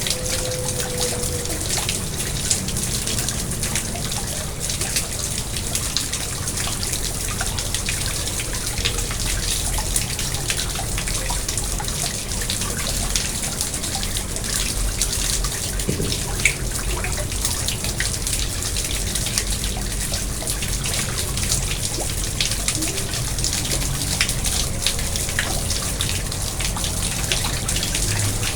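Water trickling and splashing steadily in a garden pond, with many small drips.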